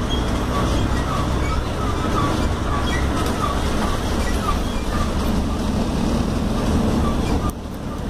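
Steady engine and road rumble inside a moving Mercedes-Benz OF-1721L city bus, with rattles and a small repeating squeak from the body. The noise dips briefly near the end.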